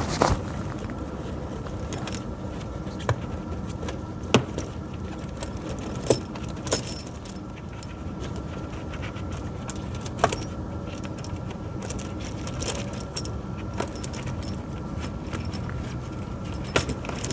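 Steel tractor tire chains clinking and jangling as they are handled, in scattered sharp clinks over a steady low hum.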